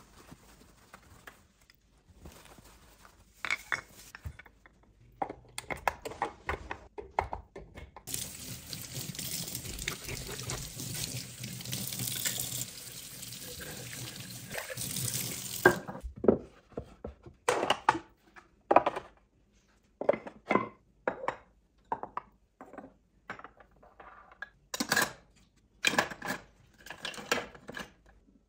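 Kitchen tap running into a stainless steel sink for several seconds in the middle as an item is rinsed under it. After the water stops, a string of separate sharp knocks follows, a little under one a second, as objects are set down on the counter.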